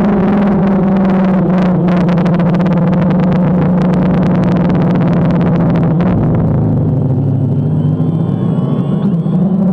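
Multirotor drone motors and propellers running with a steady hum, heard from a GoPro mounted on the DJI Phantom, with rapid crackling on the microphone. About six seconds in, the pitch drops and stays lower, as when the throttle is eased.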